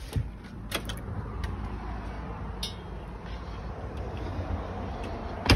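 A door latch clicking as a door is opened, a few light knocks, then a steady low rumble, ending in one sharp knock.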